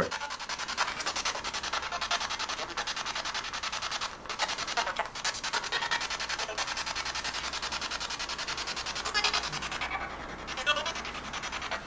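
Spirit box, a handheld radio, sweeping rapidly through the radio band: a steady, fast chopping static, with a couple of brief louder snatches of sound near the end.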